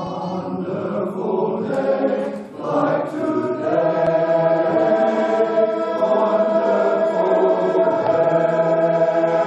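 Men's barbershop chorus singing a cappella in close harmony, moving through the last phrase and settling about three and a half seconds in on one long held final chord.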